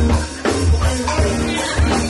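Live band playing: electric guitar, bass guitar and drum kit, with a heavy bass line and drums keeping a steady beat.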